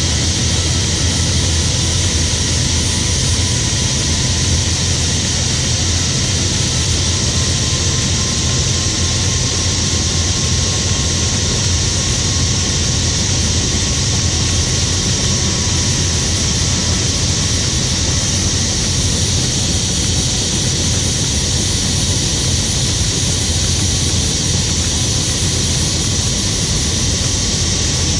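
Helicopter in flight heard from inside the open-doored cabin: steady, loud engine and rotor noise with a strong low drone under a bright high hiss.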